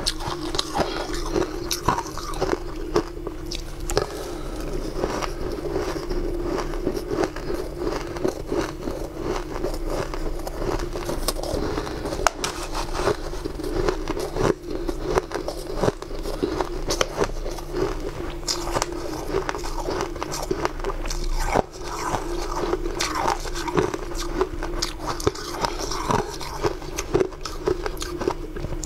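Close-up crunching and chewing of mouthfuls of fluffy, powdery ice, full of small crackles and bites, over a steady low hum.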